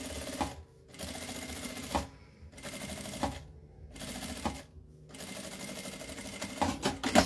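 Jack A4 single-needle industrial lockstitch machine sewing in short runs, stopping and restarting several times with brief pauses in between.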